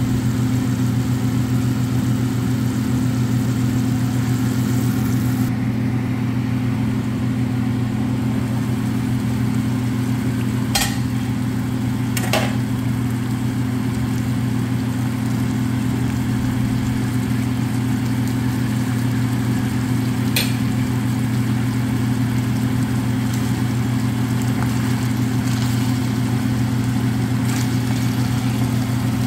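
A steady, loud low hum with a strong even pitch, typical of a kitchen exhaust fan or motor running, with a few short sharp knocks; the last, near the end, as a wooden spoon goes into the frying pan.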